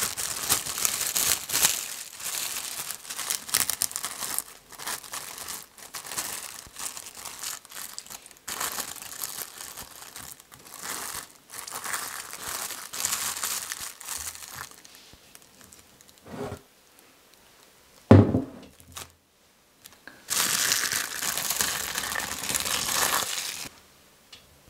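Plastic cling film crinkling and rustling in bursts as it is stretched over a bowl and pressed down onto the surface of the cream. Past the middle come two dull knocks, the second the loudest sound, then a last burst of crinkling near the end.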